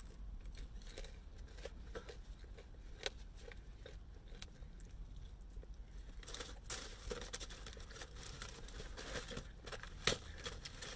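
Handling of a cardboard fried-chicken box and its paper: small clicks and crackles as hands dig through the box, with a denser stretch of rustling about six seconds in and a sharper click near the end. Faint chewing of fried chicken near the start.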